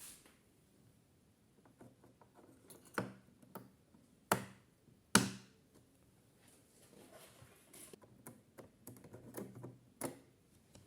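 Sharp clicks and knocks from handling the iMac's RAM modules and memory bay, four louder clicks among lighter tapping and rattling.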